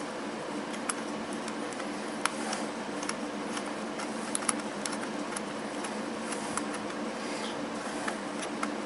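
Scattered light clicks and taps of small hardware being handled, over a steady low hum.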